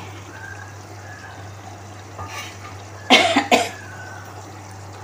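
A person coughs, two short coughs close together about three seconds in, over a steady low hum.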